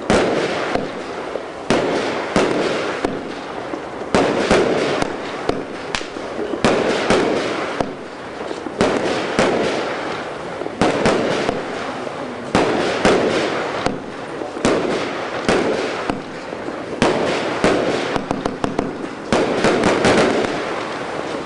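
Geisha 1740 Double Demolition firework cake firing shot after shot: sharp bangs roughly one or two a second, sometimes several in quick succession, over the steady crackle of bursting stars.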